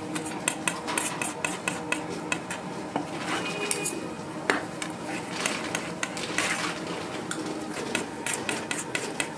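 Metal kitchen utensils clattering at a fish cake bar stall: irregular clinks, knocks and scrapes against pans and bowls, one ringing briefly about three seconds in, over a faint steady hum.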